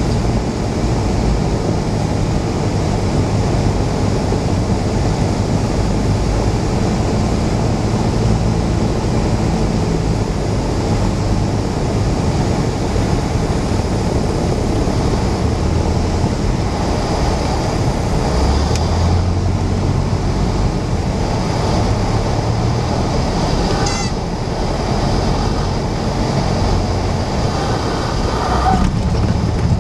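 Cessna 172's piston engine and propeller running at reduced power, heard inside the cabin with steady airflow noise, through the last of the approach and the touchdown on grass. Short high squealing honks sound about two-thirds of the way through and again near the end, as the stall warning horn goes off in the flare.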